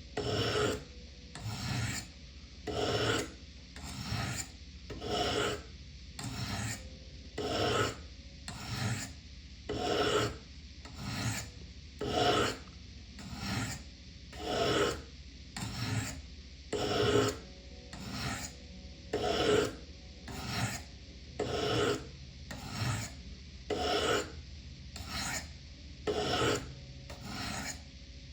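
Knife blade drawn again and again down the coarse ceramic rods of a Spyderco Triangle Sharpmaker, one stroke about every second.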